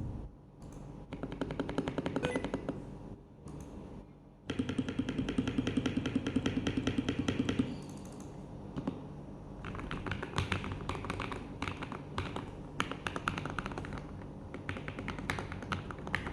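Typing on a DareU EK861 mechanical keyboard fitted with MMD Panda tactile switches and Akko ASA keycaps, with foam in the case and under the PCB: keys clacking in quick runs. From about four and a half to seven and a half seconds in, the strokes come in a very fast, even stream, then irregular typing resumes.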